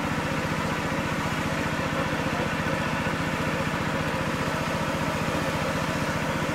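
A small engine running steadily with an even, fast chugging beat. It is the kind of engine that drives the water pump used to drain a fish pond.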